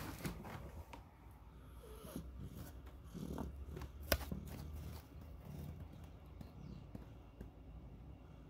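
A dozing black-and-white house cat purring softly: a low rumble that swells and eases with its breathing. A single sharp click about four seconds in.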